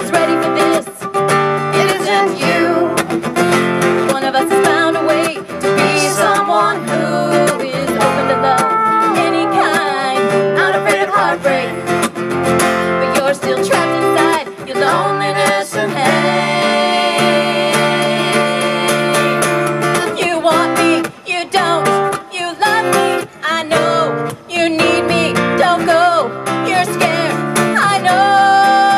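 Live acoustic song: steel-string acoustic guitar strummed under a woman's lead vocal.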